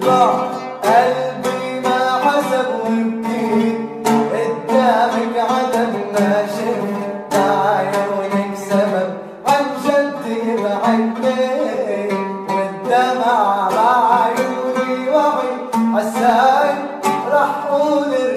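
Arabic song: a voice singing a slow, wavering melody over a plucked string instrument.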